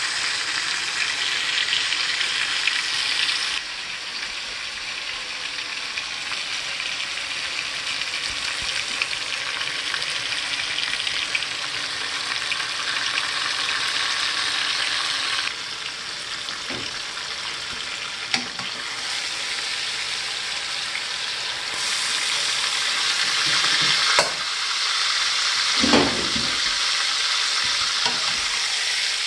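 Chuck roast searing in hot fat in a stainless steel pan, the final sear of a reverse sear: a steady sizzle. A few light knocks come in the last several seconds, the loudest about 26 s in.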